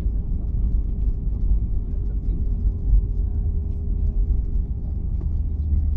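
Cabin noise of an Airbus A321 taxiing on the ground: a steady low rumble from the idling engines and rolling gear, with a steady hum.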